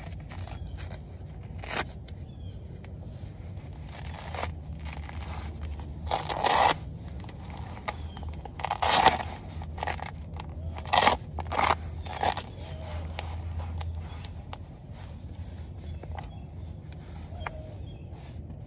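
Scratchy rustling and scraping as a waist trainer is pulled around the body and its fasteners worked closed, with several louder scratchy strokes of about half a second each.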